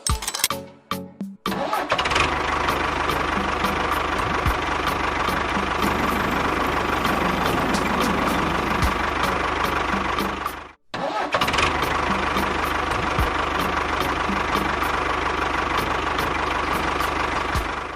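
A small motor running steadily with a constant whine and regular ticking. It cuts out abruptly for a split second about eleven seconds in, then runs on. Music plays briefly at the start.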